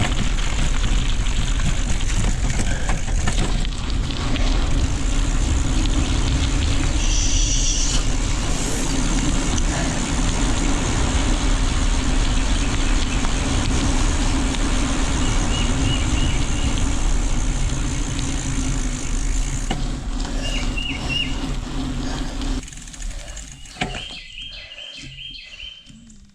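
Steady rush of wind and rolling noise while riding, with a low rumble and a steady hum, which falls away suddenly about 22 seconds in. Birds chirp in short repeated bursts in the second half and near the end.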